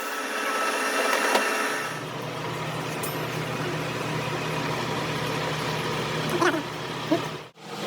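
An engine or motor running steadily with a low hum. It starts abruptly about two seconds in, replacing a hissing machine noise, and cuts out briefly near the end.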